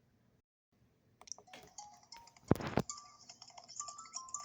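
Cartoon soundtrack heard through a TV speaker: light clicks and short plinking notes, with one loud hiss-like burst about two and a half seconds in.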